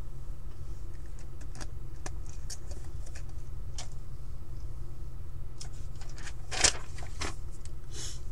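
Scattered small clicks and handling noises on a desk over a steady low hum, with a louder rustle of paper near the end as a printed sheet is laid down.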